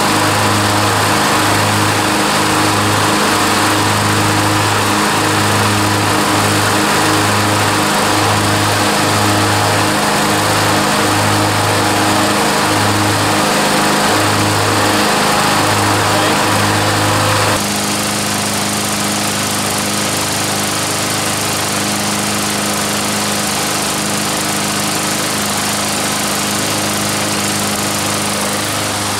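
Two walk-behind gasoline lawn mower engines running together, a steady drone with an uneven throbbing. A little over halfway through the sound changes abruptly to a steadier, slightly quieter engine drone.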